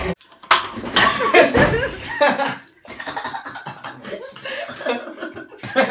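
A man laughing hard, with a woman coughing and spluttering after choking on water she drank through a straw.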